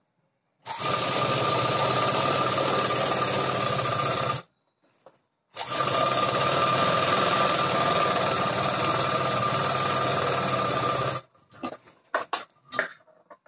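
Black household sewing machine driven by a clip-on electric motor, stitching at a steady speed in two runs: one of about three and a half seconds, a short stop, then one of about five and a half seconds. A few light clicks and knocks of handling follow near the end.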